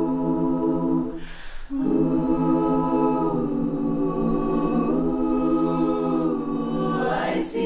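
All-female barbershop chorus singing unaccompanied, holding sustained close-harmony chords, with a brief pause about a second and a half in.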